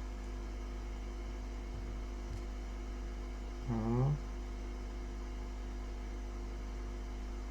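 Steady low electrical mains hum, with one short voiced sound from a person about four seconds in.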